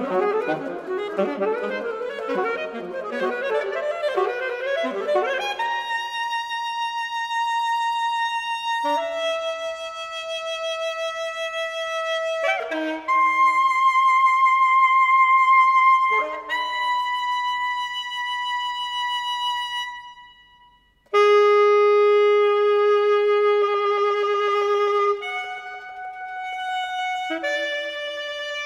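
Two alto saxophones playing a contemporary duet: a rapid flurry of notes for the first five seconds or so, then long held notes that change pitch every few seconds. About two-thirds through there is a brief pause, followed by a loud, lower held note.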